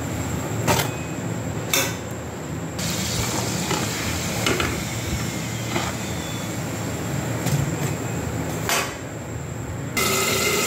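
Urad dal kachoris deep-frying in hot oil in a kadhai: a steady sizzle, with several sharp clicks of a metal slotted spoon knocking against the pan as the puffed kachoris are turned and lifted. About ten seconds in, the sound changes abruptly to a different, louder cooking sound.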